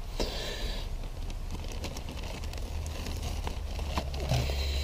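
Handling noise: a plastic bag rustling near the start and again near the end as it is fetched, with scattered small clicks, over a low steady rumble.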